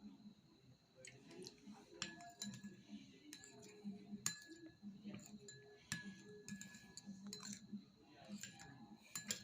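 Faint, scattered clinks of a metal spoon against dishes and a sauce bottle while a spoonful of soy sauce is measured out, some taps followed by a brief ring.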